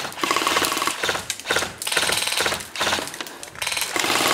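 Airsoft rifles firing repeated bursts on full auto: rapid strings of clicks, about six to seven bursts with short pauses between them.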